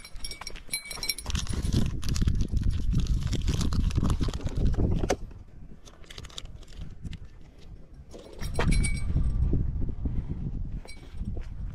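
A low rumble on the microphone that drops away for a few seconds in the middle, with scattered light metallic clinks and jingles.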